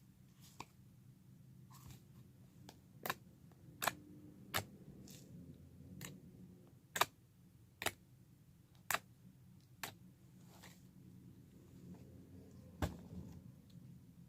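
Clear glue slime being squished and stretched by hand, giving a series of sharp, short clicking pops, irregularly about once a second, over a faint low hum.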